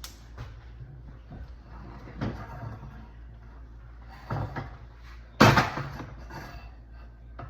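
Kitchen handling noise: a few light knocks and clatters, with one loud bang about five and a half seconds in.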